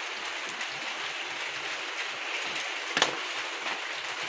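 Steady hiss of background noise, with one sharp click about three seconds in.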